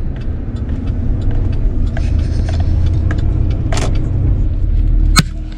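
Steady low engine and road rumble heard from inside a moving car's cabin, swelling slightly as it drives, with a few light clicks and one sharp click near the end.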